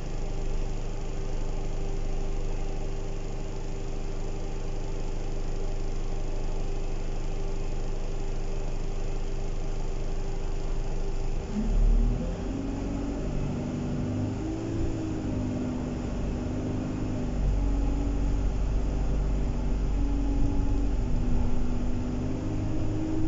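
Inside an Alexander Dennis Enviro 200 single-deck bus: the diesel engine runs steadily at first, then about halfway through the bus pulls away and the engine note rises and falls several times as it picks up speed, with a heavier rumble near the end.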